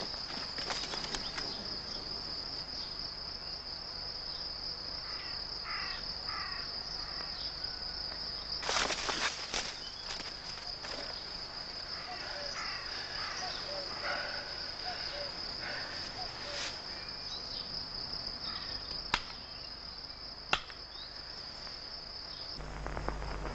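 Field insects chirring in one steady, high, unbroken trill. A brief rustling burst comes about nine seconds in, a few short chirps are scattered through, and two sharp clicks come near the end.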